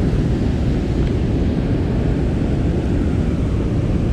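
Steady low rumble of wind buffeting the microphone over the rush of fast river current from a dam spillway.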